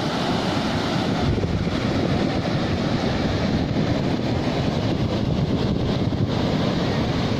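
Sea waves washing, with wind buffeting the microphone. A deep low rumble comes in about a second in and stays.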